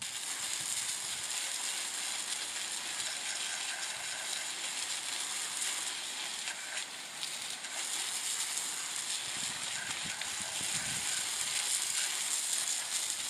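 Garden hose spray nozzle jetting water onto quartz crystal points and clusters in a wire-mesh sifting screen: a steady hiss of spray with water spattering over the rocks and mesh.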